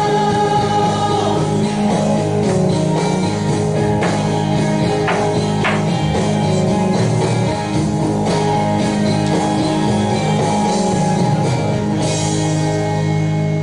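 Worship band music with singing, guitar and drums, the chords held steady.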